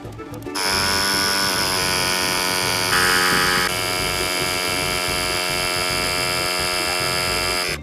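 A steady electric motor buzz with many even overtones, starting abruptly about half a second in and cutting off suddenly at the end. A brief hiss joins it around three seconds in.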